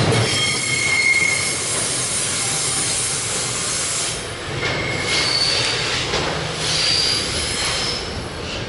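Container freight train's wheels squealing on the rails as the last wagons pass and the train rolls away, over a steady rumble of wheels on track. Short high-pitched squeals come about a second in and again around five and seven seconds in.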